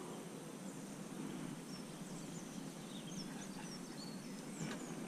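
Faint birdsong: a few short, high chirps of small birds scattered through, over a soft steady background hiss.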